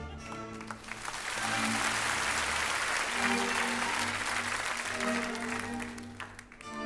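Audience applauding over orchestral music; the clapping builds about a second in and fades away near the end while the music carries on underneath.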